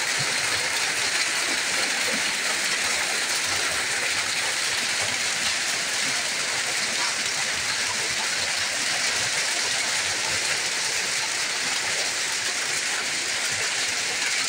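Steady hiss of rain mixed with small hailstones striking wet ground, with scattered ticks of individual hits.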